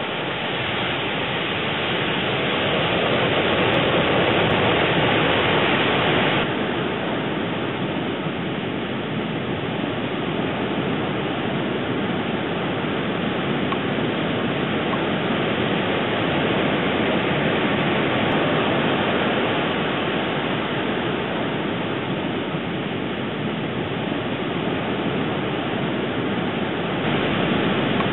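Steady rushing of ocean surf, an even wash of noise that drops a little about six seconds in and comes up again near the end.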